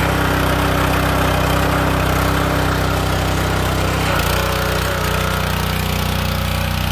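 Kohler SH265 6.5 hp single-cylinder engine running steadily on a pressure washer during its first test run. Its note shifts slightly about four seconds in.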